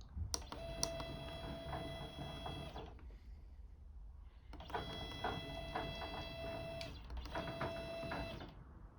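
Two stepper motors on a DIY CNC router driving the gantry along its linear rails, whining with several steady tones in three runs: a long one, a second long one after a pause of nearly two seconds, and a short one near the end. Both motors now move the axis together without stalling.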